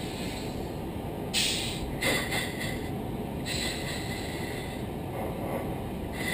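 Oxygen hissing through the flight crew's quick-donning oxygen masks in bursts: a short one about a second in, another soon after, and a longer one from about halfway on. Underneath is a steady rush of cockpit air noise.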